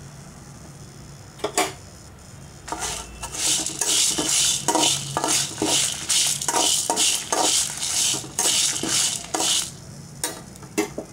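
Spatula stirring and scraping lentils and whole spices around a metal kadai as they dry-roast without oil, in quick rasping strokes about two a second, after a single knock on the pan about a second and a half in.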